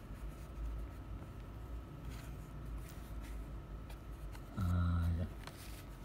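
Faint rustling of a plastic blister pack being handled over quiet room noise, with a man's short held hesitation sound, an 'ehm', about three-quarters of the way through.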